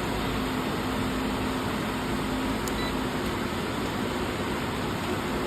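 Infiniti JX35's 3.5-litre V6 idling steadily under the open hood, with a faint steady hum over it, while the alternator is checked for charging; the alternator is suspected bad.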